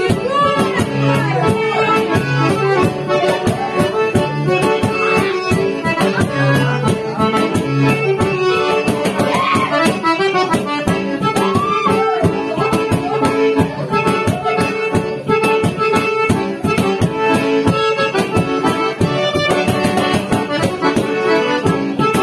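Accordion playing a lively traditional tune over a fast, steady percussion beat.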